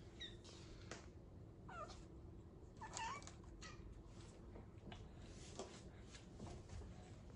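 Domestic cat meowing quietly a few times in short calls, the clearest about two and three seconds in, one dropping in pitch.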